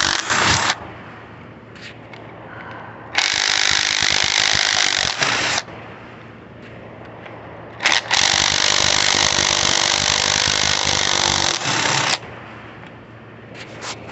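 Cordless impact wrench hammering on a stuck bolt in three bursts, the last and longest about four seconds, without breaking it loose; its battery is nearly dead.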